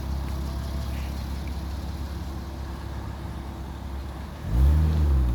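A car engine running with a steady low hum, then revving up suddenly near the end as the car tries to push through floodwater on the road and gets stuck.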